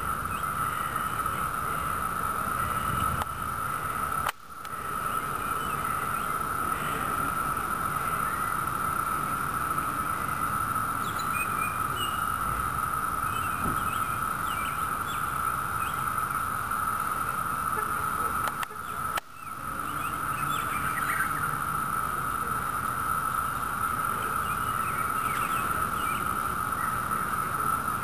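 Massed chorus of Brood II periodical cicadas (Magicicada): a steady, high, ringing drone, their mating song. It breaks off briefly twice.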